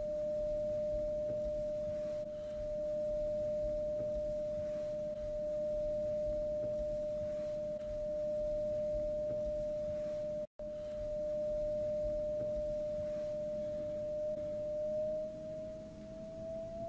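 Pure sine-wave tone at about 600 Hz, held steady, with a brief cut about ten and a half seconds in. Near the end its pitch begins to glide slowly upward.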